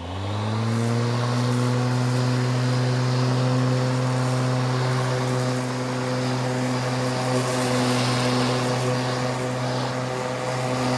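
Homelite 12-amp corded electric lawnmower's motor starting up, its pitch rising quickly to full speed, then running with a steady hum as the mower is pushed over the lawn.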